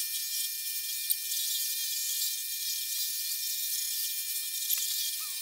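Electric rotary polisher with a wool buffing pad running steadily against an outboard engine cowling: a steady high-pitched whine with hiss as it buffs out oxidation.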